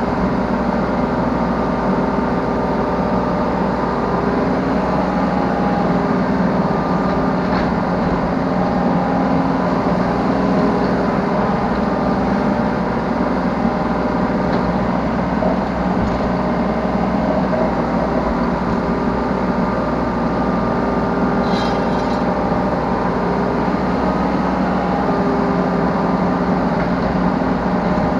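Yanmar B3 Sigma 3-ton mini excavator's diesel engine running steadily while it works its hydraulics, heard from the operator's seat, with a couple of faint clicks.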